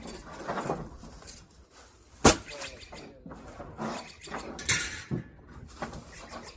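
Scrap being handled: a single sharp knock about two seconds in, then a brief scraping rustle near five seconds, amid quieter handling noises.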